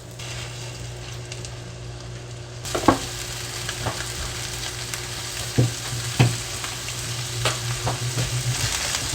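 Striped bass fillet, coated in fish fry seasoning, sizzling as it fries in butter in a pan. The sizzle gets louder about three seconds in, with a few light knocks.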